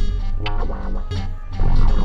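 Music: guitar over a heavy bass line with drum hits about every three quarters of a second.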